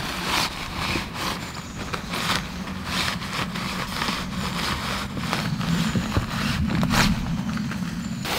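Rustling and scraping of a DD hammock's fabric and suspension cord as it is handled and rigged between two trees, in many short bursts with a sharper scrape about seven seconds in, over a steady low hum.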